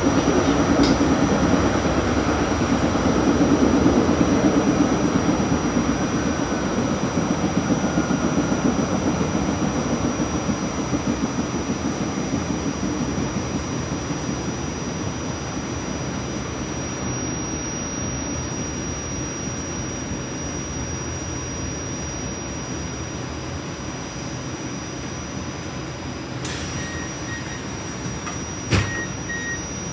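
RTA Blue Line light-rail car running on the track, its rumble slowly fading as the train slows. A single sharp knock comes near the end.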